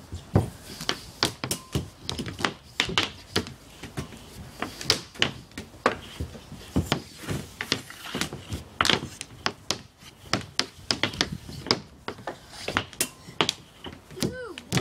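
Ball hockey play: hockey stick blades and a hard plastic ball knocking and tapping on a plastic shooting pad and against goalie pads, in a string of irregular sharp knocks a few per second.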